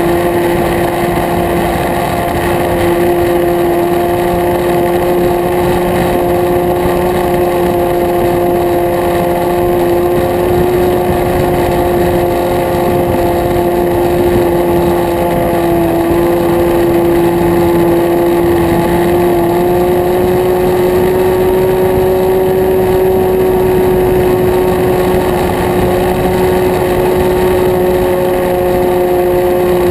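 Nitro glow engine of an RC model plane running at high throttle in flight, heard close up from a camera mounted on the plane: a steady high-pitched buzz that sags a little in pitch about halfway through and then rises again, with wind rush behind it.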